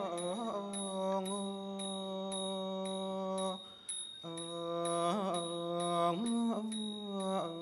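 Thai classical vocal singing: long held vowel notes that bend between pitches, stopping briefly about four seconds in. Small cymbals (ching) tick a steady beat about twice a second beneath the voice.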